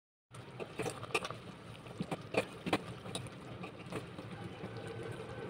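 A steel spoon stirring whole amla in sugar syrup in a stainless steel pot: several sharp clinks and scrapes of spoon against pot, over a soft steady bubbling as the syrup begins to boil.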